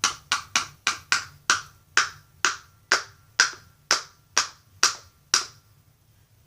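A plastic glue bottle being knocked to work the glue out: about fourteen sharp, clicky knocks with a slight ring. They come about four a second at first, slow to about two a second, and stop before the end.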